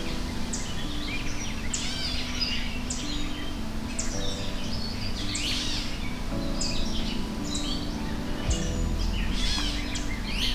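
Many birds chirping and calling at once, short overlapping chirps and quick sweeps, over a steady low hum.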